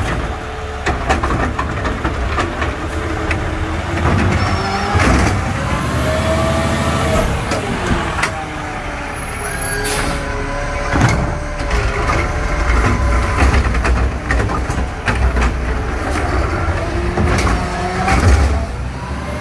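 Automated side-loader garbage truck with a McNeilus body working a curbside pickup: the diesel engine revs as the hydraulic arm lifts, dumps and lowers a wheeled cart, with a whine that rises and falls. Several sharp bangs come as the cart is shaken out and set back down.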